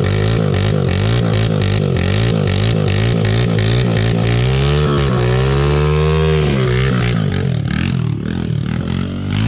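Honda CRF100F pit bike's single-cylinder four-stroke engine revving unevenly as it pulls up a muddy trail, with one longer rev rising in pitch about five seconds in and falling back a second or two later.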